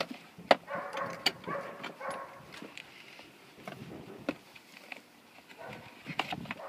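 Scattered clicks and knocks with rustling as a rear-facing infant car seat is handled and set onto a vehicle seat.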